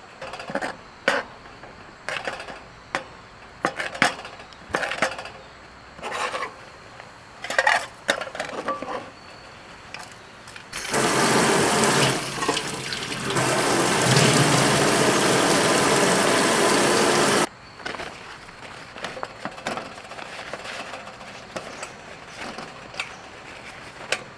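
A series of short strokes, roughly one a second, then water running steadily for about six seconds and stopping suddenly.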